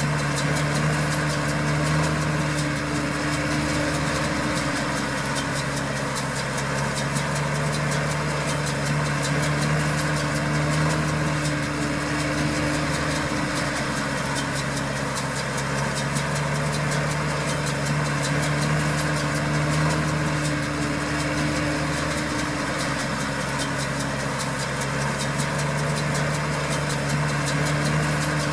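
Tractor diesel engine running at steady working revs, an even drone with no change in pitch.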